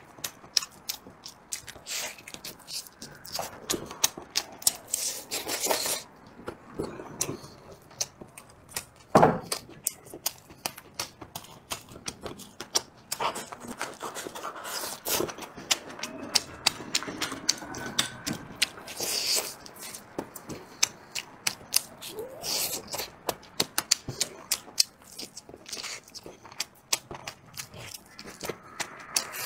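Close-miked eating: wet chewing and mouth smacks with many sharp clicks as braised duck meat is torn from the bone and chewed. A single louder thud comes about nine seconds in.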